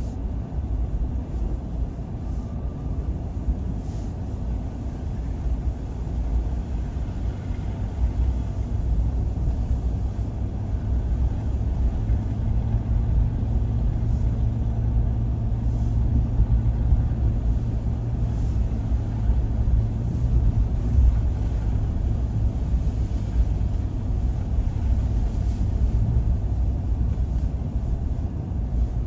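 A car driving along a road: steady low engine and tyre rumble, with a low hum that strengthens partway through and fades again near the end.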